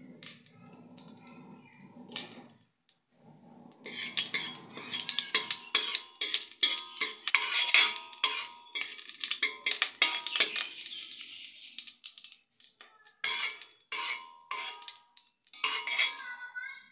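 A spoon stirring and scraping around a stainless steel pot of oil and cumin seeds, with rapid clinks and ringing metal scrapes. It starts about four seconds in, pauses near twelve seconds and resumes in two short bursts.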